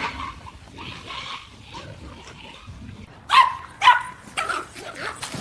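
A dog barking: two sharp barks about three seconds in, followed by a few softer ones.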